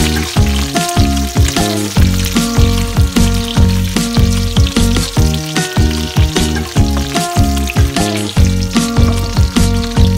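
Background music with a steady beat and bass line, over cut vegetables sizzling in hot oil in a wok as they are stir-fried with a wooden spatula.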